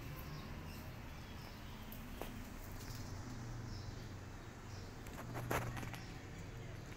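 Quiet outdoor background with a low hum and a few faint high chirps, broken by a brief rustling crackle about five and a half seconds in.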